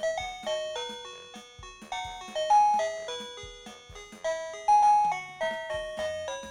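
OMERIL wireless doorbell's plug-in receiver playing one of its electronic chime tunes: a quick melody of bell-like notes, each struck sharply and fading.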